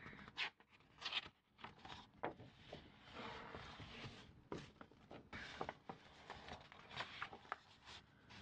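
Fingers and nails handling a paper calendar: soft brushing and rustling of the paper with a scatter of short sharp crinkles and scratches.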